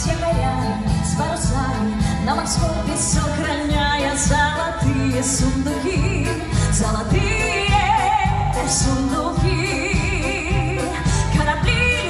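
A woman singing a song into a microphone, accompanied by a small orchestra of violins and brass, over a steady beat.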